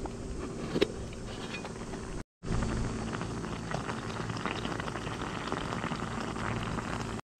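Rice boiling in a mess tin on a gas burner, a dense steady bubbling crackle as the last of the water cooks off. Near the start a single metal clink as the lid is lifted.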